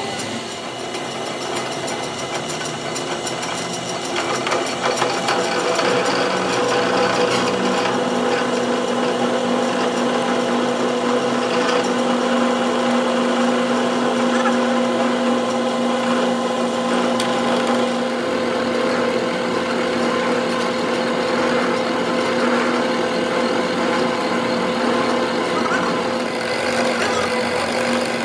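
Workshop machinery running continuously over a rough, busy noise. A steady hum comes in about five seconds in and holds, and the sound grows a little louder then.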